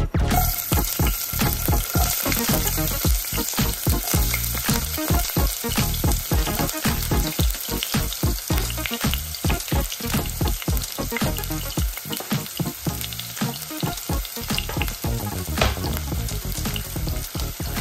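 Chopped onion sizzling and crackling as it fries in hot oil in a stone-coated pot, stirred with a wooden spatula.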